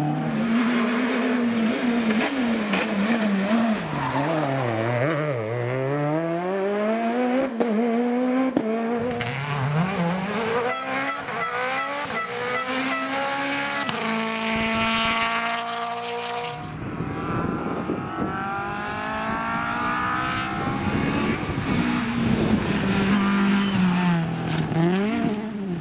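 Rally car engines driven hard, the pitch climbing and dropping again and again through gear changes and lifts.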